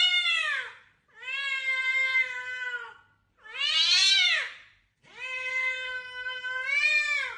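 Domestic cat meowing four times in long, drawn-out calls: a short falling one, a long level one of about two seconds, a short rising-and-falling one, and a final long level one.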